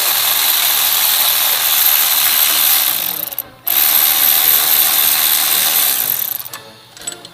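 Ratchet wrench clicking rapidly in two runs of about three seconds each, with a short break between, as a throttle body mounting bolt is turned out.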